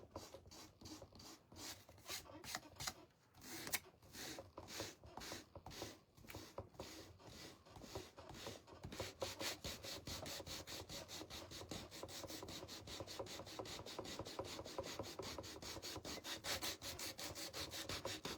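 Coarse-grit sandpaper rubbed back and forth over a wooden cutting board, sanding down a transfer to distress it. The strokes are slower and uneven at first, then quicken to a steady rapid scrubbing from about halfway through.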